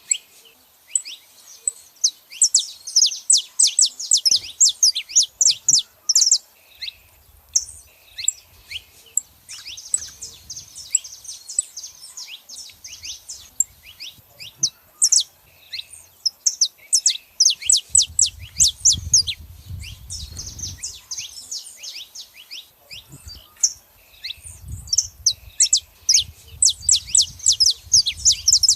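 Saffron finches calling and singing: quick runs of sharp, high chirps that come in several bursts, with short gaps between them.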